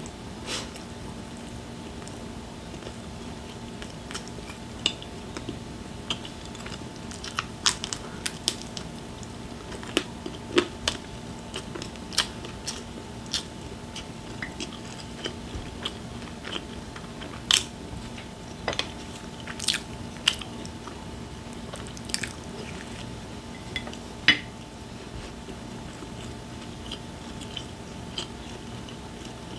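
Close-miked chewing and biting of a crisp Gyeongju ten-won bread, with scattered sharp crunches and mouth clicks. A steady low hum runs underneath.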